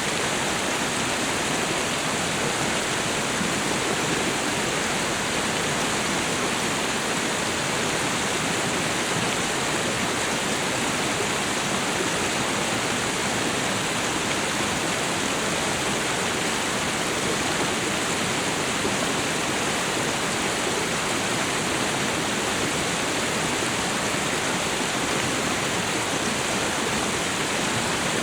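Waterfall and river water rushing: a steady, even roar of falling and flowing water with no breaks.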